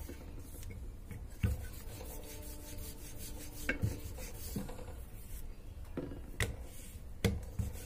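Wooden rolling pin rolling out paratha dough on a marble rolling board: a soft, steady rubbing, broken by about five light knocks.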